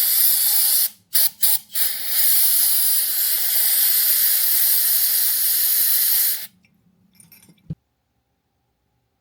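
Pressurised spray hissing while cleaning carburettor parts: a one-second blast, three short bursts, then a steady blast of about four seconds that cuts off suddenly. A single soft knock follows near the end.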